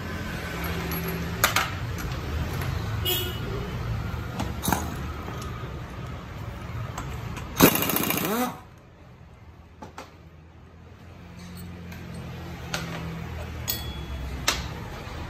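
Air impact wrench rattling in one burst of about a second, spinning off the nut of the scooter's front drive pulley (variator), its pitch falling as it stops. Light metal clinks of tools and pulley parts being handled come before and after.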